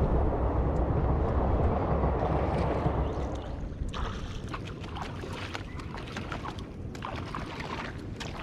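A steady rushing of water and wind as the small boat moves along. About three and a half seconds in it gives way to quieter sloshing and small splashes as a man wades through shallow water carrying a cast net.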